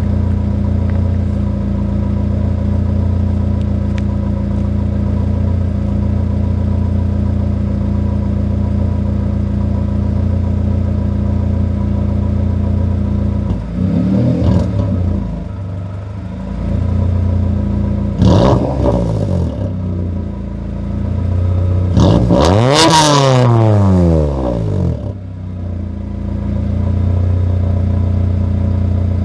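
1997 Honda Accord's H22 four-cylinder engine idling steadily with a freshly replaced exhaust flange gasket. In the second half it is revved three times, each rev rising and falling back to idle; the last rev is the highest and longest.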